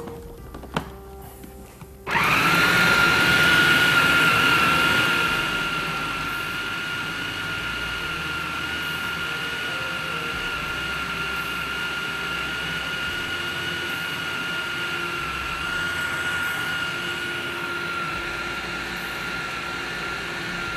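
Electric food processor running, a steady high whine as it minces boiled fish with spices and ginger-garlic paste into kofta mixture. It starts suddenly about two seconds in, after a few light clicks as the lid is fitted. It is a little louder for the first few seconds, then settles.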